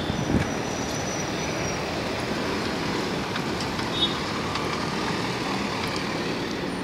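Steady road traffic noise, with a short faint high tone about four seconds in.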